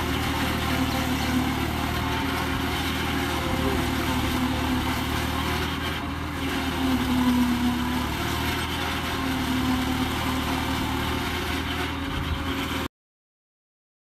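Swaraj 855 tractor's three-cylinder diesel engine running under steady load while powering a Shaktiman silage harvester that chops standing maize and blows it out through its spout. A steady mechanical drone that swells slightly about halfway through, then cuts off abruptly near the end.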